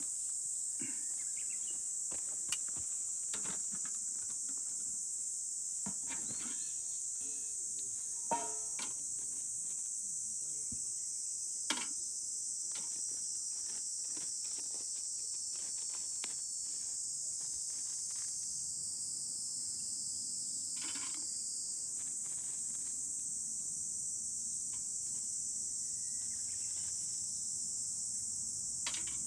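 A steady, high-pitched chorus of insects shrills without a break. Scattered light clicks and knocks sound over it, with three sharper ones near the start.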